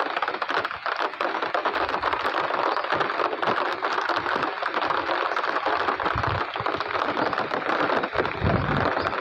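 Steady rain pattering, a dense crackle of many drops, with a few short low rumbles of wind on the microphone.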